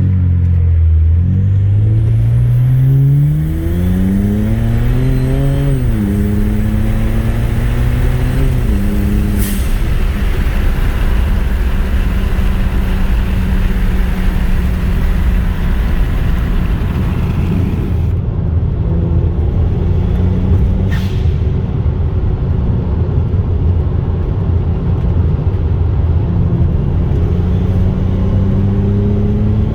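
BMW 335i's turbocharged straight-six pulling hard, its pitch rising and dropping back twice at upshifts about 6 and 9 seconds in, then running steadily at cruise. The owner suspects the turbos are not making boost.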